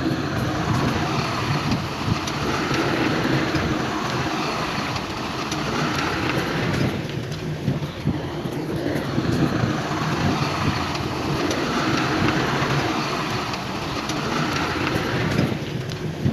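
Heavy diesel earthmoving machinery running, its engine note swelling and easing every few seconds as it works.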